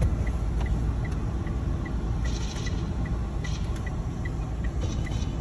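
Steady low rumble of a car's engine and road noise heard inside the cabin as it drives slowly, with a light regular ticking about two to three times a second.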